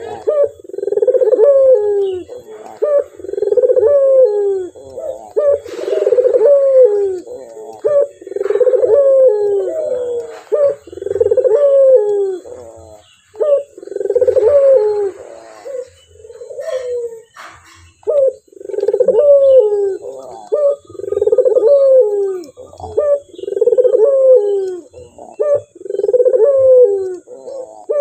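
Male barbary dove (ringneck dove, 'puter') cooing over and over: a low, rolling coo roughly every one and a half seconds, with a brief pause about halfway through.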